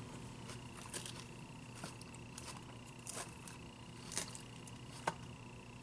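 Faint clicks and ticks of a plastic fork picking through lettuce in a clear plastic takeout salad container, about half a dozen sharp ticks spread out, the loudest two near the end, over a faint steady high whine.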